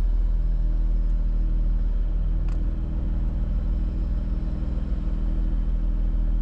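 Heavy diesel engine idling steadily with a low, even rumble, with one brief click about two and a half seconds in.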